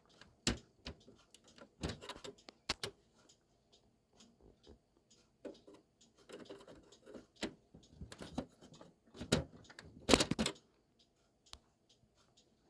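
Scattered clicks and scrapes of a flathead screwdriver prodding among the plastic feed gears inside a Brother HL-2240 laser printer, trying to prise out a jammed piece of white plastic, with a louder scraping cluster about ten seconds in.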